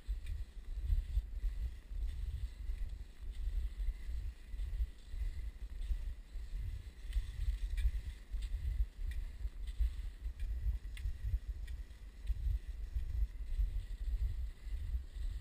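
Wind buffeting the microphone of a camera moving across open snow: an uneven low rumble in gusts, with faint scattered ticks from movement over the snow.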